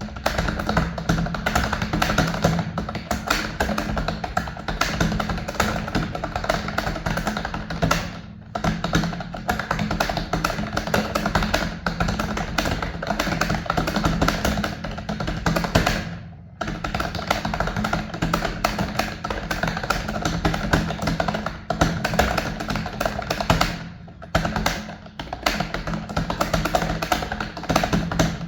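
Background music under rapid, continuous computer-keyboard typing. The clicks come many to the second, with short breaks about a third and two-thirds of the way through and again near the end.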